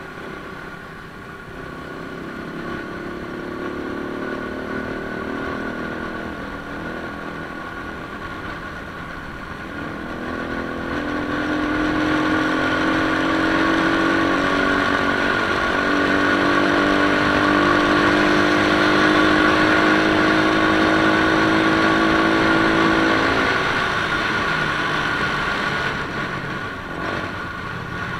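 Motorcycle engines running while riding along a road, heard from a moving motorcycle. About ten seconds in, the engine note climbs and grows louder as the bike speeds up. It eases off again near the end.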